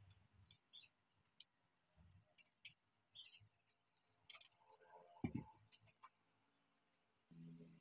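Faint, scattered clicks and ticks of hands handling an all-metal microscope, turning its focus knobs and tilting its arm, with one louder knock about five seconds in.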